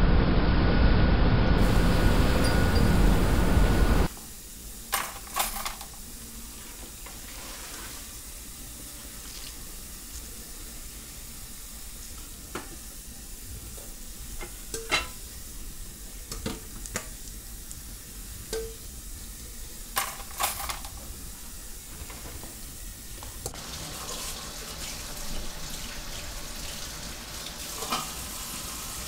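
A loud, low rumble for about four seconds that cuts off abruptly, then kitchen sounds: a steady hiss with scattered clinks and knocks of dishes and utensils. The hiss grows brighter near the end.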